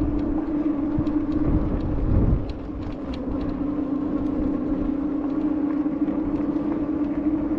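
Juiced Scrambler electric bike being ridden: a steady hum, likely from its hub motor, under a low wind rumble on the microphone that is heaviest in the first two seconds or so.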